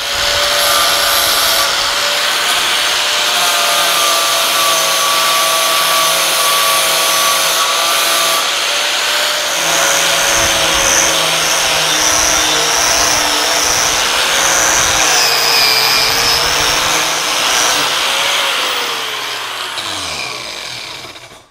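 Bauer 1864E-B 4½-inch corded angle grinder switched on and running steadily at full speed. Near the end it is switched off and spins down, its pitch falling as it winds to a stop.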